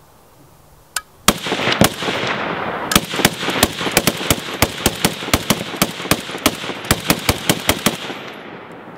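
Browning 1919 .30 caliber machine gun firing. A few single shots come about a second in, then a long run of rapid shots, roughly five a second, for about five seconds, with echo ringing between them.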